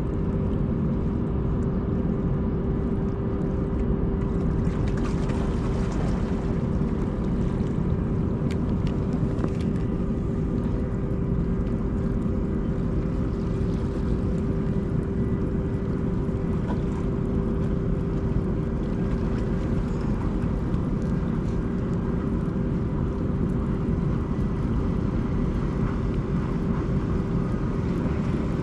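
Steady low mechanical drone with a constant humming tone, from a ship's machinery in the harbour, over a wash of wind and water.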